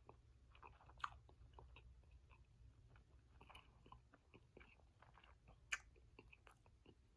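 Faint chewing and biting of a sloppy joe burger on soft bread: soft, wet mouth clicks, with two sharper clicks, about a second in and again after five seconds.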